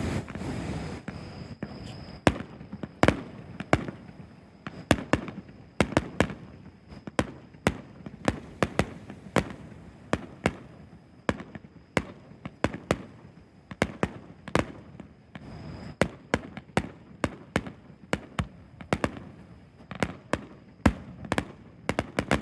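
Fireworks going off: a long, irregular series of sharp bangs, at times several a second, over a low rumble.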